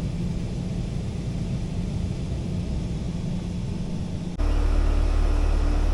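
Central air-conditioning system running: a steady blower noise with a low hum, then, after a cut about four seconds in, the louder, deeper steady hum of the outdoor condensing unit.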